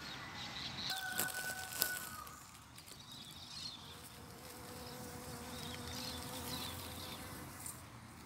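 Honeybees buzzing in and around a zucchini flower, a steady hum that is clearest in the second half. Two sharp clicks come in the first two seconds.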